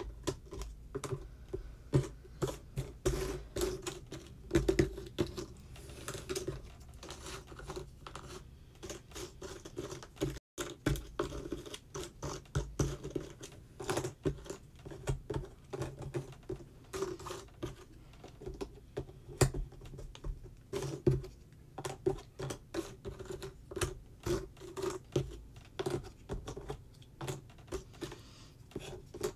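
Jigsaw puzzle pieces with a 3D-effect finish being sifted, picked up and pressed into place in a puzzle tray: an irregular run of light clicks, taps and scratches over a low steady hum. The sound cuts out for a moment about ten seconds in.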